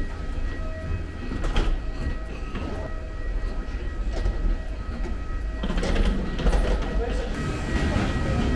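Steady low rumble with a thin high whine from the machinery of a jet bridge and parked airliner, under scattered footfalls and distant voices of passengers boarding.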